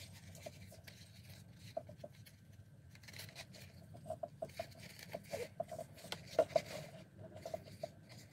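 Handling noise from a Bucket Boss saddle leather pliers holder and a nylon belt strap: scattered light taps, rubs and scrapes as the pouch is turned over and the strap is worked through its belt loop, busiest in the middle.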